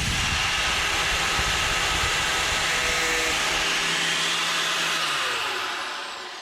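Electric cutting tool running steadily as it cuts through a motorcycle clutch cable. About five seconds in it is switched off and winds down with a falling whine.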